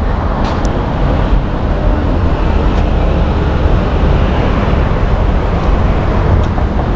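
Steady road traffic noise: a continuous rumble and hiss with no single vehicle standing out.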